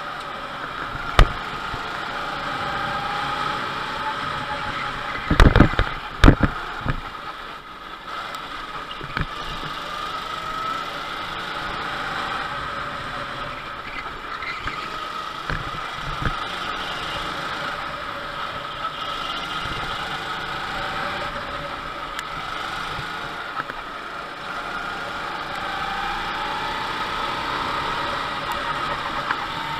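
Go-kart engine heard from on board as the kart laps the track, its note rising and falling in pitch as it speeds up and slows. A few sharp knocks come about a second in and several more around six seconds in.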